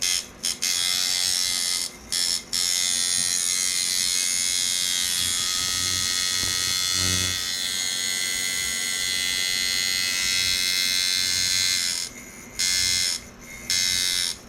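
Handmade J-frame coil tattoo machine, set up as a shader, running at 6.5 volts with a steady, dense electric buzz while being tuned, a sound the builder judges pretty good. It stops briefly a couple of times near the start and runs in several short on-and-off bursts near the end.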